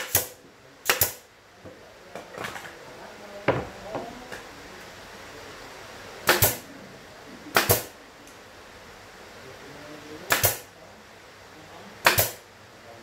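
Pneumatic brad nailer firing brads into a plywood speaker cabinet, with about seven sharp shots at irregular intervals, two of them close together about a second in. Softer knocks come in between.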